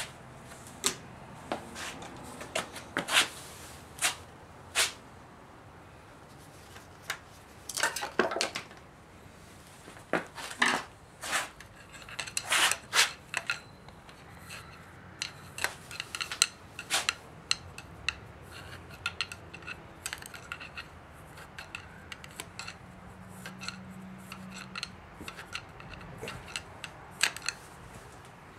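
Metal hand tools and engine parts clinking and clattering against each other, in irregular sharp clicks, some with a short metallic ring.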